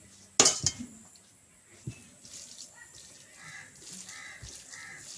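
A dish clatters sharply about half a second in, and a single knock follows near two seconds. After that come soft, wet, splashy handling sounds at the plate.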